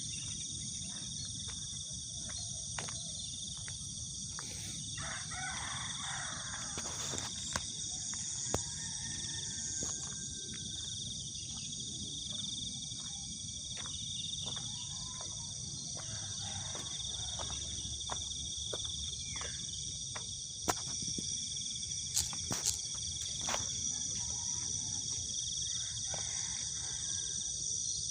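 Steady chorus of insects shrilling without a break, with scattered sharp clicks and knocks throughout.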